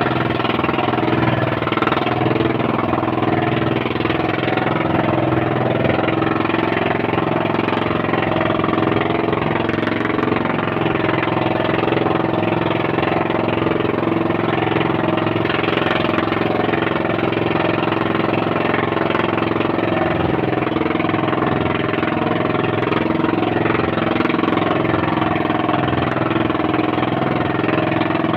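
Small boat engine running steadily at a constant speed while under way.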